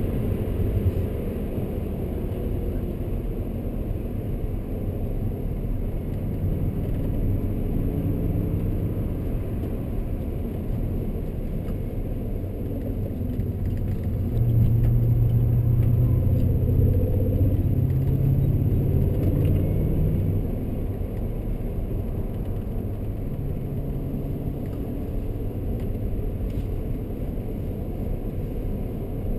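2003 E39 BMW M5's 4.9-litre V8 running under way with tyre and road noise, heard from inside the cabin. The engine tone shifts with the throttle, and it gets louder for about six seconds past the halfway point before settling back.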